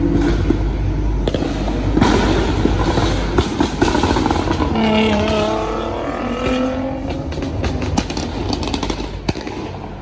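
Nissan GT-R's engine revving hard as the car accelerates past, its note gliding in pitch as it pulls away. Near the end comes a rapid run of exhaust pops and crackles.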